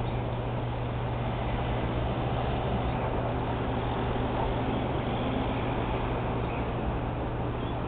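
Street ambience: a steady wash of traffic noise over a constant low hum, with a few faint high chirps.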